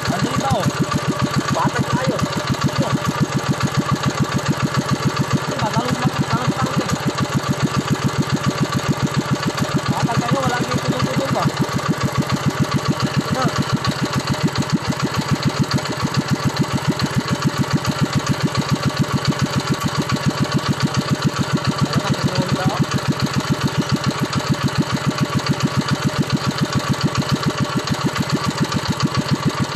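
Honda GX-series single-cylinder four-stroke engine running steadily on its own, with an even, rapid firing beat.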